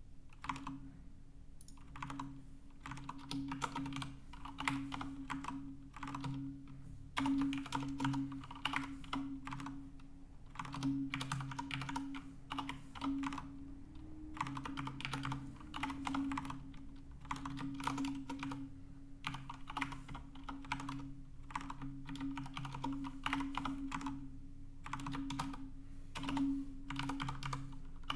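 Typing on a computer keyboard in quick bursts of keystrokes with short pauses between them, entering numbers into a spreadsheet.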